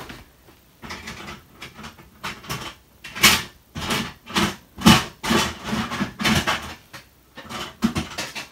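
Toy train track pieces clattering and knocking together as they are rummaged out of storage, in irregular clacks, the loudest a little after three seconds in and again around five seconds in.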